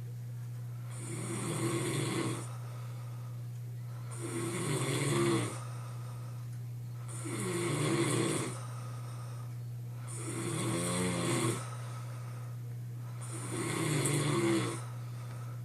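A man snoring heavily in his sleep: five snores, about one every three seconds, each lasting a second or so, over a steady low hum.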